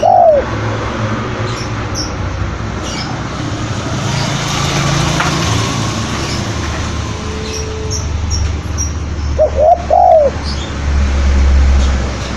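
Spotted dove cooing: one call phrase right at the start and another about ten seconds in, over a steady low rumble with faint high chirps of small birds.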